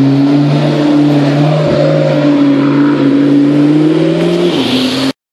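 McLaren P1's twin-turbo V8 running loud at nearly steady revs as the car drives past and away down the street. The engine note rises slightly, dips shortly before the end, then cuts off abruptly about five seconds in.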